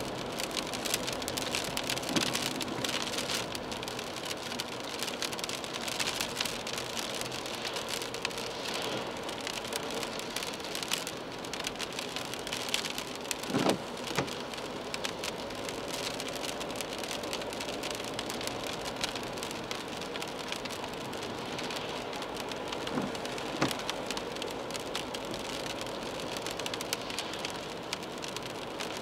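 Rain pattering on the windscreen and roof of a moving car, heard from inside the cabin, over the hiss of tyres on the wet road. About halfway through, the windscreen wiper sweeps across the glass with a short swish-and-thump, and it does so again a little later.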